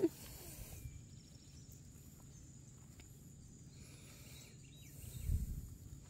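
Outdoor ambience: a low rumble of wind on the microphone with faint insect chirping, and a brief louder low swell about five seconds in.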